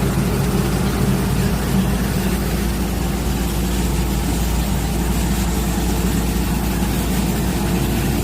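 Automatic core drilling machine running steadily, its engine giving an even low drone with no change in speed.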